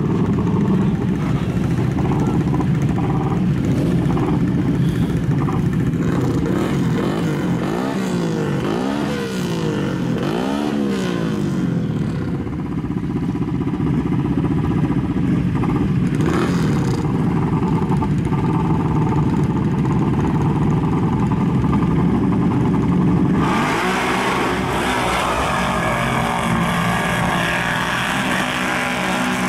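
Several modified ATV engines running at a start line, revving up and down in rising and falling sweeps partway through. Then an ATV at full throttle churns through deep mud and water, with the engine under load and a hiss of spray.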